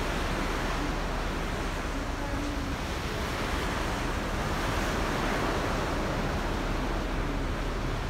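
Steady rush of open sea and wind heard from the deck of a moving ferry, with wind buffeting the microphone.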